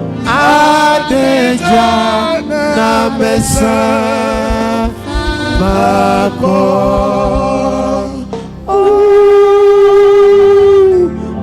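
Gospel singing during a church service: a voice sings with wide vibrato, ending on one long held note for the last couple of seconds.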